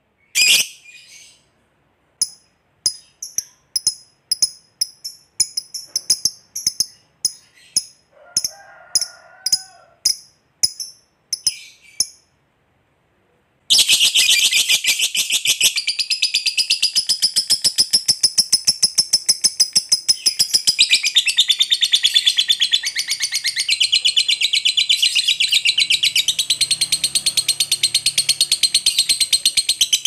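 Lovebird calling: sharp, high single chirps about twice a second, then after a short pause a long, unbroken, very fast chattering trill (the 'ngekek panjang', long chatter) that runs on from about halfway through.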